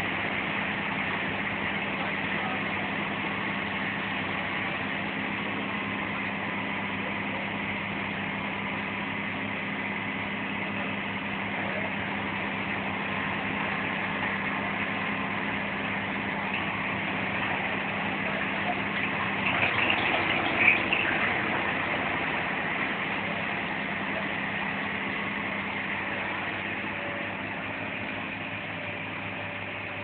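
Valtra T190 tractor's diesel engine running steadily, driving a woodchipper, with a thin steady whine over the engine. About twenty seconds in comes a short, louder burst of crackling and grinding as branches go through the chipper, then the steady running carries on.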